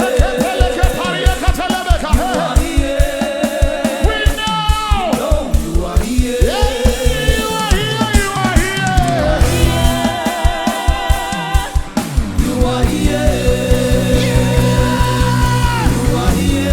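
Live gospel worship music: voices singing with vibrato over a band with a steady, fast drum beat.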